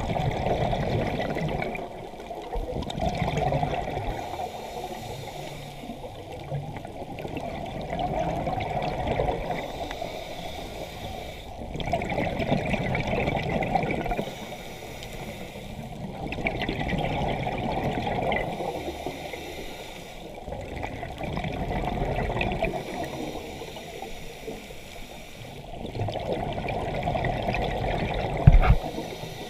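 Scuba diver breathing underwater through a regulator: seven gurgling bursts of exhaled bubbles, one every four to five seconds, with quieter stretches between. A short knock sounds near the end.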